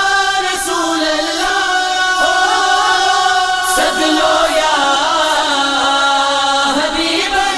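Wordless vocal interlude of a naat: voices hold a steady humming drone while a solo voice sings a wavering, ornamented melody over it.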